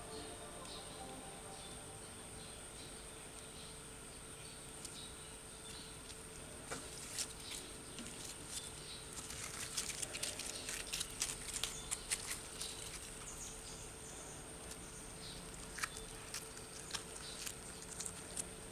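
Shampoo-and-glue slime being handled, giving faint sticky clicks and pops that come thickest around the middle and again near the end.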